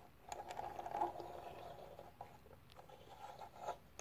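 A small die-cast toy delivery scooter rolled and scraped across a wooden tabletop by hand, giving a rough rolling rumble for about a second, then a few light clicks and taps as the toy is handled and set down.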